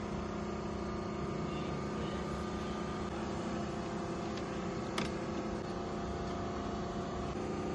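An engine running at a steady idle, with one sharp click about five seconds in.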